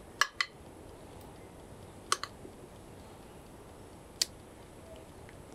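Spoon clicking against cookware while ladling tomato sauce into a baking dish: two quick double clicks, then a single click about four seconds in.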